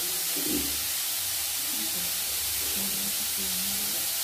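Steady hiss and sizzle of boiled raw jackfruit pieces and grated coconut frying in coconut oil in a steel kadai.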